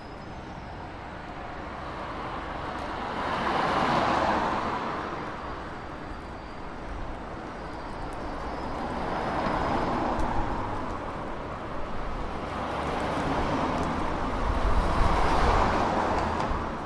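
City street traffic: cars passing one after another, their engine and tyre noise swelling up and fading away three times over a constant traffic hum.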